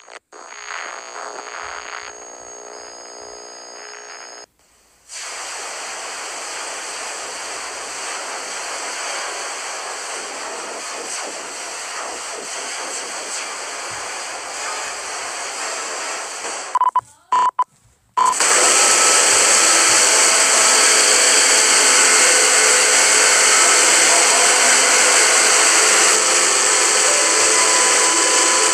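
Heavily distorted, effects-laden soundtrack of a 'scarier' logo edit: a few seconds of a warped sustained chord, then a steady hissing roar of noise. About two-thirds of the way in it drops out briefly with a couple of short beeps, then returns louder as harsh, static-like noise with droning tones in it.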